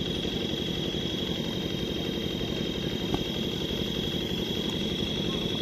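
A steady low engine drone with a steady high whine above it. About three seconds in comes one sharp crack of a bat hitting a plastic ball.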